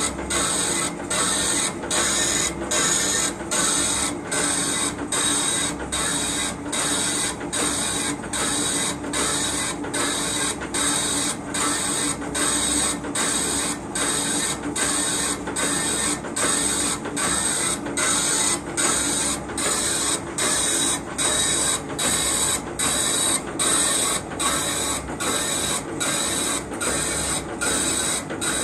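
Metal-cutting machine tool working, a steady high cutting and machine sound broken by a brief regular drop about one and a half times a second.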